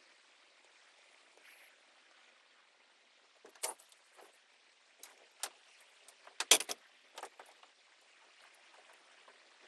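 A few scattered sharp knocks and clatters over a faint hiss, the loudest a quick cluster about six and a half seconds in.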